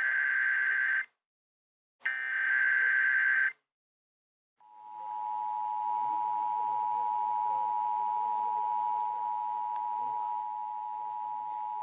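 Emergency Alert System transmission: two buzzy digital SAME header bursts, each about a second and a half long with a pause between, then the EAS two-tone attention signal, a steady dual tone that starts about four and a half seconds in. It signals the start of a new alert, here a repeat of the tornado warning.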